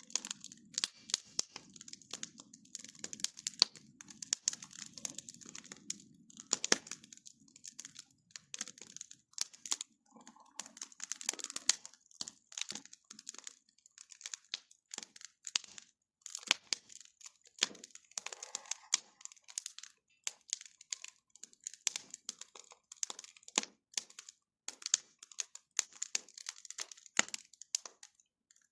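Bonfire of wood crackling, with many irregular sharp pops and snaps and a low rumble underneath that fades out about a third of the way through.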